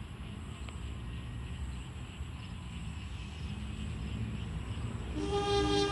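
Low rumble building slowly as a diesel-hauled passenger train approaches. Near the end, the locomotive's horn starts a steady multi-note blast.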